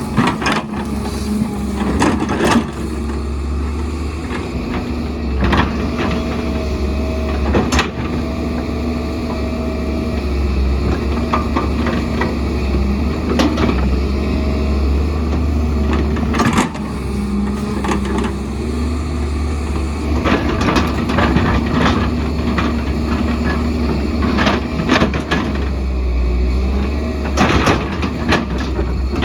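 Excavator working, its engine running steadily with a deep rumble, with irregular metallic clanks and knocks of earthmoving throughout.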